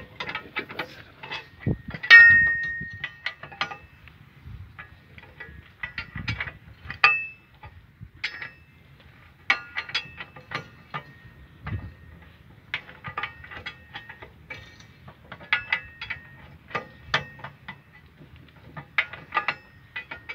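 Steel socket wrenches clicking and clinking as they work the bolts of an excavator's track chain guard, in irregular sharp metal clicks. A louder metal clank about two seconds in rings on for about a second.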